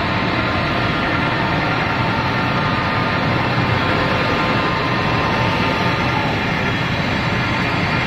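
ZRFT1300 high-speed slitting machine running, its paper web feeding over the rollers: a loud, steady, even machine noise with faint steady tones.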